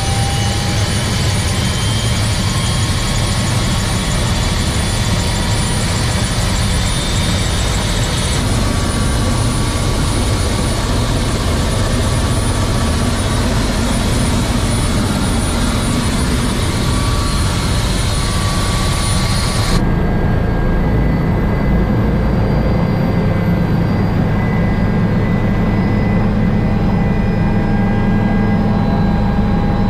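Helicopter in flight, heard from inside the cabin as a loud, steady drone. About two-thirds of the way through, the hiss drops away suddenly and the low drone comes forward.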